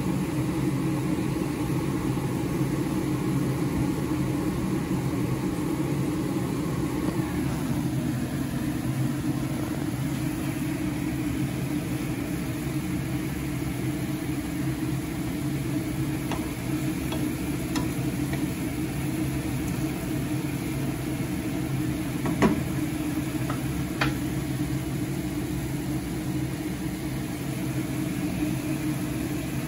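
Chicken pieces boiling in liquid in a stainless steel frying pan, bubbling and sizzling steadily over a steady low hum. Two short sharp clicks come about two-thirds of the way through.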